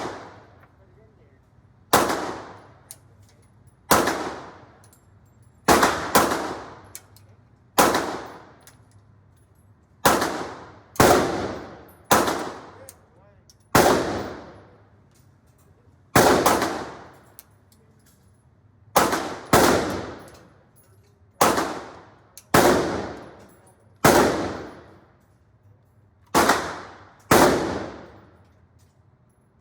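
Gunshots fired one at a time, about twenty of them, spaced one to two seconds apart at an uneven pace. Each is a sharp blast whose ring dies away over most of a second.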